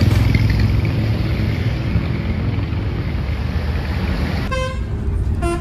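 Tour coach's diesel engine idling with a low rumble. About four and a half seconds in, a multi-tone bus horn starts sounding short notes at changing pitches, in the style of an Indonesian 'telolet' horn.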